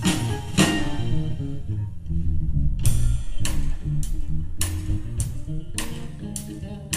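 Live band playing an instrumental: electric guitar, bass guitar, keyboards and drum kit. Two cymbal crashes open it, and from about halfway in cymbal strokes keep a steady beat, about one every 0.6 seconds.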